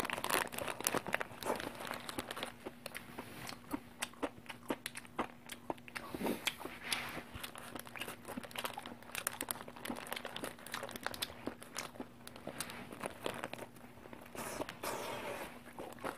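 A person biting into and chewing a microwaved barbecue burger up close, with many quick wet clicks from the mouth and the burger's red paper wrapper crinkling in his hands. A low steady hum runs underneath.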